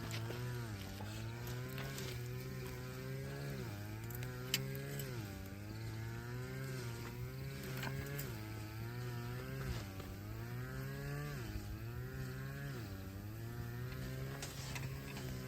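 A vehicle engine running, its pitch climbing and dropping back over and over as it accelerates and eases off.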